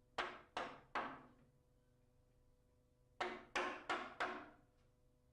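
Wide-bladed wood chisel being struck, chopping out a lock mortise in a door edge: three sharp blows in quick succession, then after a pause four more.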